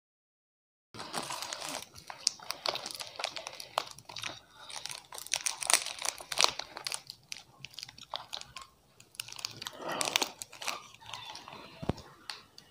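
Plastic chocolate-bar wrapper crinkling and tearing as it is unwrapped by hand, starting about a second in, in dense crackly bursts.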